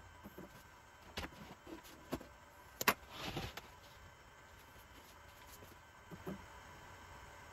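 A few small clicks and knocks, then a sharp click followed by a short scraping whir, as a dial-indicator tramming tool mounted in a CNC router's spindle is turned by hand over the wooden spoil board.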